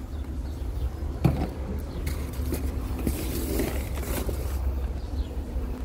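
Diesel truck engine idling with a steady low rumble, building up air pressure after a broken air-line connection was replaced. A single knock comes about a second in, and a hiss runs for about a second and a half from about three seconds in.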